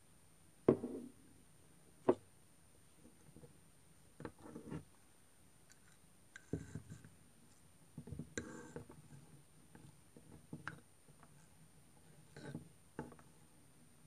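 Metal teaspoon stirring a drink in a small mug, with irregular clinks and scrapes against the mug's sides and rim. The two loudest clinks come in the first two seconds; after that come shorter bursts of stirring, several seconds apart.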